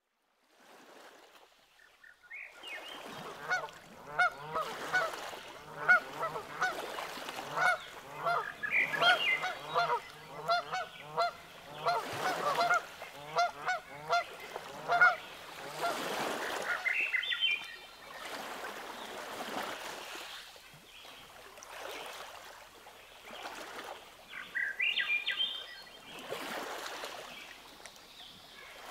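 A flock of Canada geese honking. The sound fades in over the first couple of seconds, then many rapid, overlapping honks fill the first half; in the second half the honks grow fewer and more scattered, with soft rushing noise between them.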